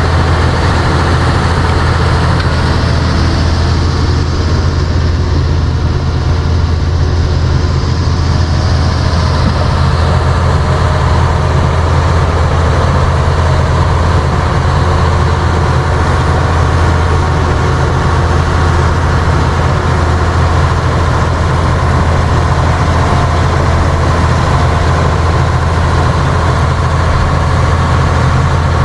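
Heavy diesel engine of tile-drainage machinery running steadily, a deep constant hum.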